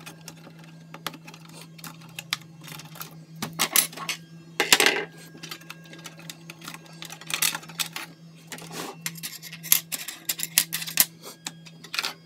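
Clicks and clatters of DDR2 RAM sticks being released from their slot clips and pulled out of a desktop PC's motherboard, with the loudest handling around the middle.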